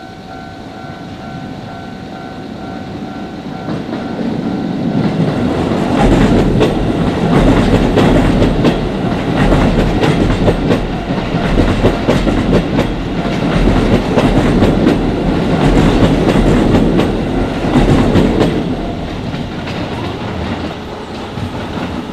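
Electric commuter train passing close over a level crossing, wheels clattering on the rails; it builds over the first few seconds, runs loud for about twelve seconds, then fades. A steady two-tone crossing warning bell sounds at the start and is drowned out as the train arrives.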